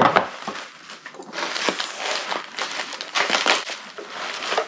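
Packaging crinkling and rustling in irregular bursts as a part is handled and unwrapped by hand.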